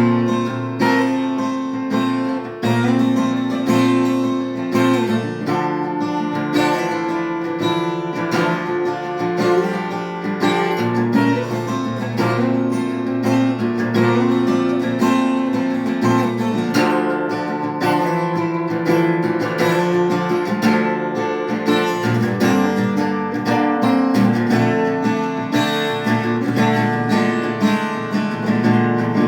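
Acoustic guitar playing an instrumental piece, chords strummed and plucked in a steady rhythm.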